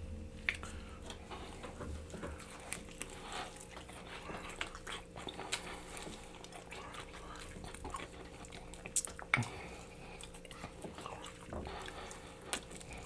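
Close-miked eating of sauced chicken: irregular wet chewing, smacking and small crunches. A faint steady hum runs underneath.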